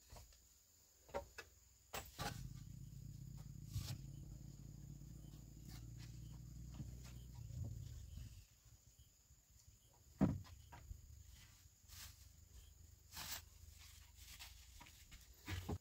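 Footsteps and scattered knocks on the loose wooden planks and logs of a barn floor, the loudest knock about ten seconds in. A low steady rumble runs underneath from about two seconds in until about eight seconds in.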